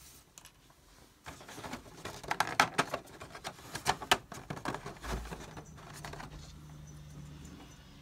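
Fingers clicking and rattling against a black moulded plastic accessory tray while prying a miniature revolver out of its slot: a run of irregular sharp clicks and rustles from about a second in, dying away by about six seconds, with a low bump about five seconds in.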